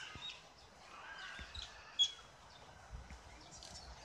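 Quiet open-air background with small birds chirping on and off, and one sharp high chirp about two seconds in.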